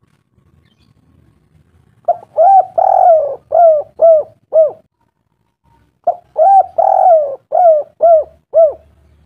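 A bird calling: two loud phrases of about six short, arched, rise-and-fall notes each, the second phrase starting a little over a second after the first ends.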